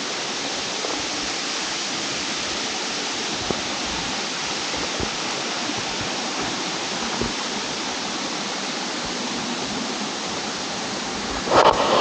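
Steady rushing roar of a waterfall, its falling water running evenly. A short, louder burst of noise comes in near the end.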